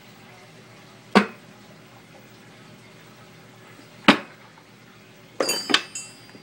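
Sharp metal clinks of a wrench working a steel gear puller as it draws a transmission pump out: a single clink about a second in, another about four seconds in, then a quick ringing double clink near the end.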